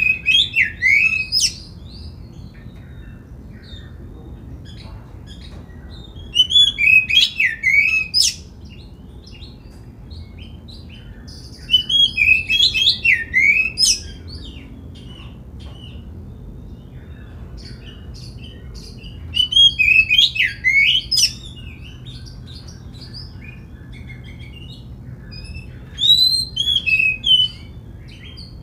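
Oriental magpie-robin singing in repeated short phrases of loud whistled notes with rising and falling glides, each phrase about two seconds long, five phrases with quieter pauses between.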